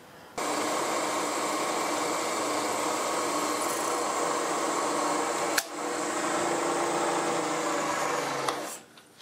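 Milling machine spindle running steadily with a number 25 twist drill cutting a tapping hole in 4140 steel. The sound starts abruptly, breaks off for a moment about five and a half seconds in, and stops near the end.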